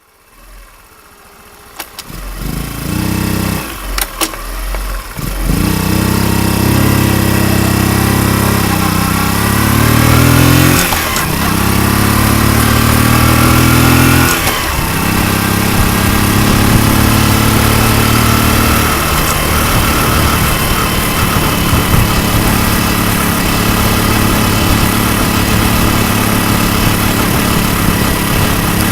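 Honda Super Cub 90 single-cylinder four-stroke engine, bored up to 105 cc, being started and catching about five seconds in, revved twice, then settling to a steady idle. It runs on a newly fitted manual cam chain tensioner, which cures the clicking from a slack cam chain.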